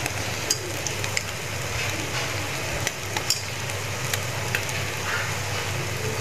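Battered tiny-shrimp fritters sizzling in hot oil in a nonstick frying pan, with a steady hiss. Scattered sharp clicks come from metal tongs knocking on the pan as the fritters are turned.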